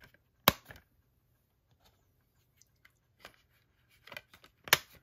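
Steelbook case and its discs handled by hand, with sharp plastic clicks and taps from fingers on the discs and clear disc tray: one loud click about half a second in, a few faint ones, and another loud click near the end.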